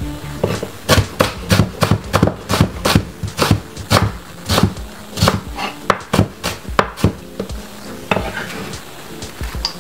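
Kitchen knife chopping white onion on a cutting board: quick, regular knocks at about four a second that thin out and stop some seven seconds in.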